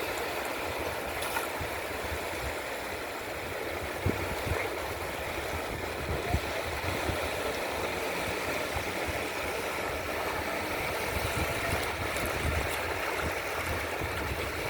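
Steady rush of wind and sea water at the shore, with wind rumbling on the microphone and a couple of brief knocks.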